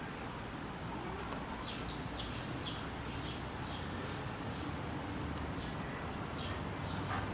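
A small bird chirping repeatedly: short high chirps, about two a second, starting about a second and a half in and running until near the end, over a steady low background noise.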